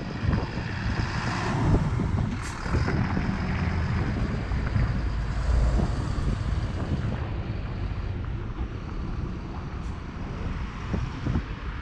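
City bus's diesel engine rumbling as it comes up to the stop, passes close by and pulls away, loudest as it goes past. A brief high hiss about two and a half seconds in.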